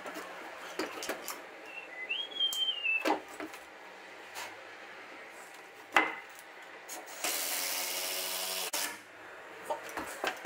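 Makita cordless drill running for about a second and a half near the end, drilling into the timber newel post to counterbore and fix it with a big screw. Before it come a few sharp knocks, the loudest about six seconds in, and a short high squeak around two seconds in.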